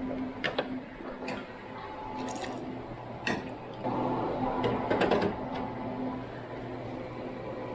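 Sharp clicks and a short rattling clatter of hand tools and screws while cover screws are put back into a portable X-ray unit, over a steady low electrical hum.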